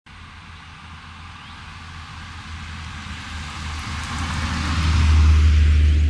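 A road vehicle passing on the nearby road: tyre and engine noise swell steadily, peak about five seconds in and begin to fade, with a heavy low rumble.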